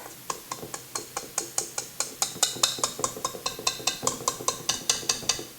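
A spatula scraping and knocking around the sides of a mixing bowl of cream cheese frosting, making quick, even clicks about six a second.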